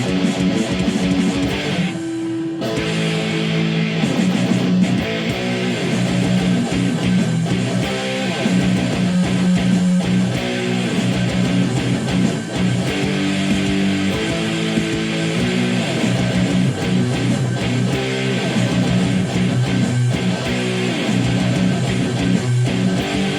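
Guitar music without singing: strummed chords held over a steady low line, with a short break in the chords about two seconds in.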